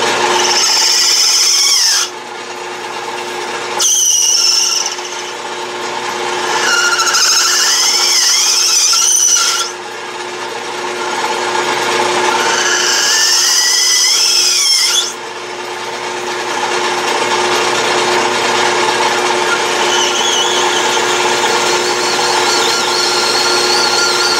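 Lathe running with a steady hum while a high-speed steel tool on a hand-swung radius-turning attachment cuts a radius on the end of a Delrin bar. There are about four passes, each a scraping cut with a whistling squeal that slides up and down in pitch, and short breaks between them where only the running lathe is heard.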